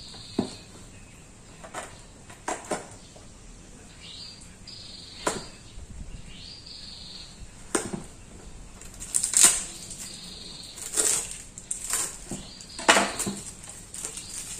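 Fishing-rod packaging being opened by hand: intermittent rustling and scraping with sharp knocks and taps, the loudest about nine and thirteen seconds in, and a few short high squeals.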